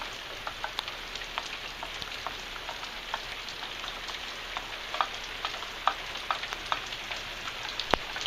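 Steady rain falling, with individual drops pattering on a hard surface, and one sharper tap near the end.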